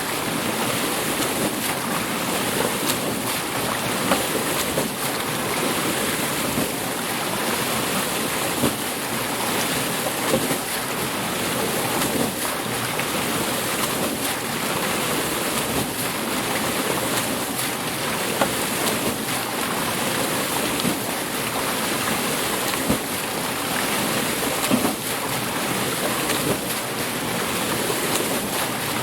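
Water mill: water rushing and splashing at the wheel in a steady rush, with scattered short splashes and knocks.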